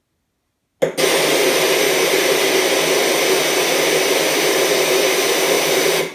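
Loud screeching noise from a Hisense F39V77C TV's sound output, a fault that comes on at random when watching from an input. It starts suddenly about a second in, holds steady as a hissing rush with a few steady tones through it, and cuts off suddenly near the end. It comes through even with mute on and was not cured by replacing the main board.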